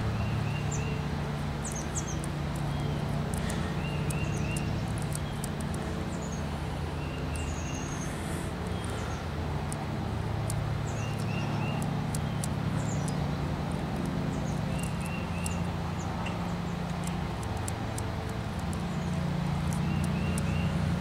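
Birds chirping over a steady low machine hum. One bird repeats a short three-note call about every three to four seconds, with scattered higher chirps between.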